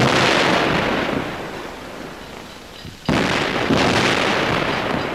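Explosions at steam locomotives: a loud blast with a sudden start that dies away over a second or two, then a second blast about three seconds later, followed by another under a second after it.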